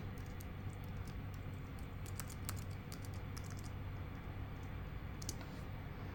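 Computer keyboard typing in short bursts of clicks, with pauses between them, over a steady low hum.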